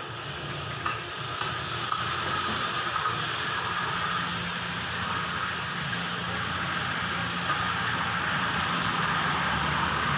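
Steady hiss of gas burners firing in a rotisserie grill cabinet, with a low hum underneath and a few light ticks.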